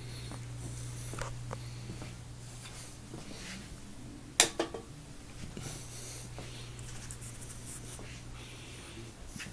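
A steady low hum with faint rustling and scratching, and one sharp click or knock about four and a half seconds in.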